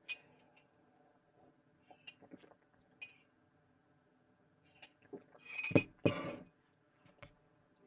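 Faint clicks and light clinks about two to three seconds in, then a louder short noisy stretch around six seconds in.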